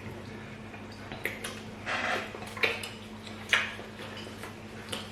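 Eating sounds at a meal of fufu and pepper soup: a handful of short clinks and clatters of bowls and utensils and mouth noises, spaced irregularly, over a steady low hum.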